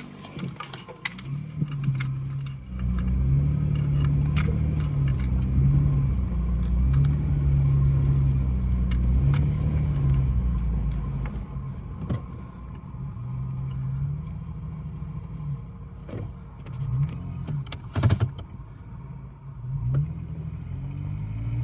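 Off-road vehicle's engine revving up and easing off again and again as it crawls over rough trail. Scattered rattles and knocks from the bouncing vehicle run through it.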